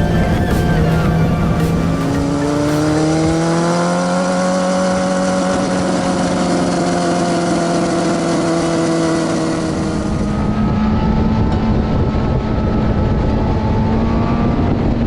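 Sport motorcycle engine running under way, with wind rush. The engine note rises about two seconds in, holds steady, then changes to a lower steady note about ten seconds in.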